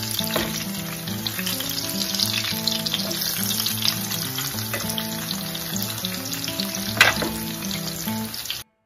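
Breaded chicken cutlets frying in hot oil in a skillet, a steady crackling sizzle as they are turned over with a fork. A single sharp click about seven seconds in.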